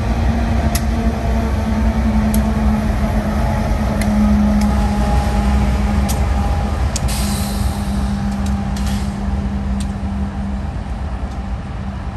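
Two GE AC4400CW diesel-electric locomotives giving distributed power at the rear of a freight train pass close by, with a steady engine drone over heavy wheel rumble and scattered sharp clicks from the wheels on the rails. About seven seconds in comes a brief hiss, and the sound slowly fades as the locomotives move away.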